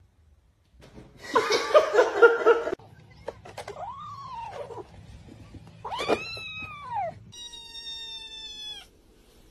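Cats and kittens meowing in turn. A loud, harsh yowl comes about a second in, then a few clicks. After that come two short meows that rise and fall, and a long, high, steady kitten meow that drops in pitch at the end.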